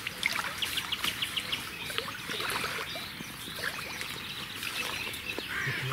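Small birds chirping, with a quick trill about half a second in, over a soft wash of water.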